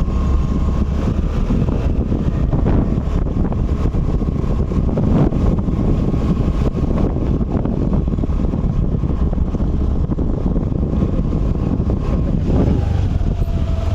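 Steady rumble of a moving vehicle, with wind on the microphone and a faint steady whine that stops near the end.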